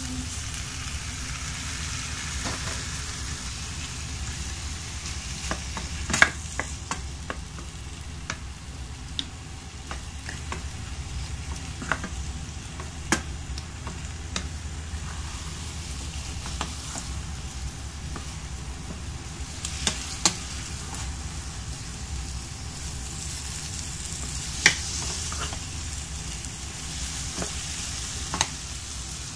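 Scrambled eggs and diced tomatoes sizzling in a non-stick frying pan while being stirred with a wooden spatula, which gives scattered sharp clicks and scrapes against the pan. A steady low hum runs underneath.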